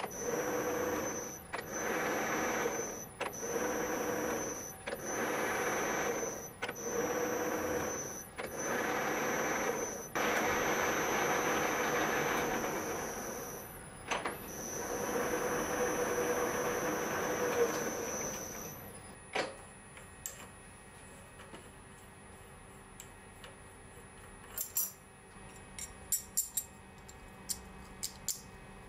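Spindle of a DIY CNC milling machine running through a rigid-tapping cycle: the motor spins up, stops and reverses direction about every one and a half seconds, then makes two longer runs, its steady whine cutting off about two-thirds of the way in. Near the end, a few light metallic clinks from an ER32 collet chuck being handled.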